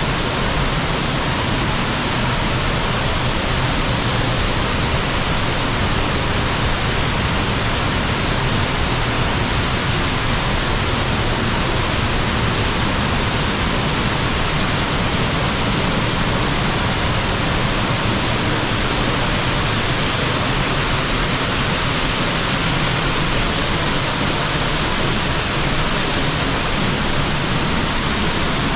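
Waterfall roaring: a loud, steady rush of falling water that never changes.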